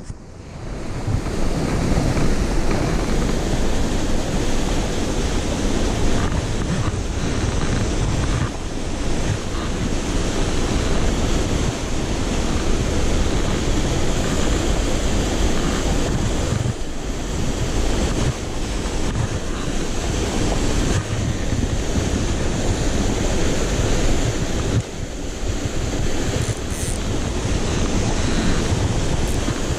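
Steady rushing of a mountain stream and a small waterfall pouring into a rock pool.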